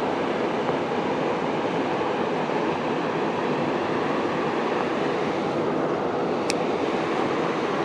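Steady rushing of river water running past the bank, an even unbroken roar. A single sharp click sounds about six and a half seconds in.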